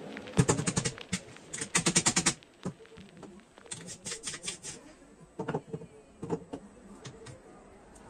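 Three bursts of fast, light metallic clicking, about ten a second, as an espresso portafilter full of ground coffee and its metal dosing ring are handled and tapped. A few separate knocks follow.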